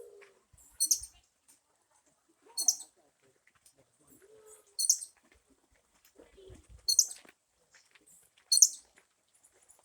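Squirrel giving short, sharp, high-pitched chirping calls, five in all, about one every two seconds.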